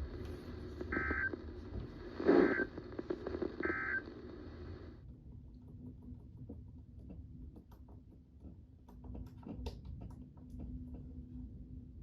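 Weather radio sounding the EAS end-of-message data burst three times: short, buzzy digital tones about a second apart. They ride over radio hiss that cuts off about five seconds in as the transmission ends, signalling the close of the warning broadcast.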